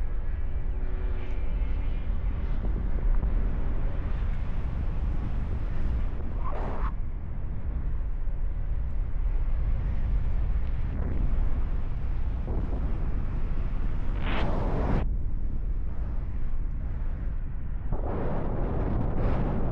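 Wind rushing over the camera's microphone in paragliding flight: a steady low rumble with three brief louder gusts.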